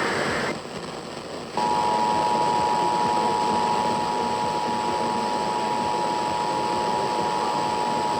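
The end of an Emergency Alert System SAME header data burst, a pause of about a second, then the EAS two-tone attention signal sounding steadily from about a second and a half in, over radio hiss. The attention signal announces that an emergency alert message follows.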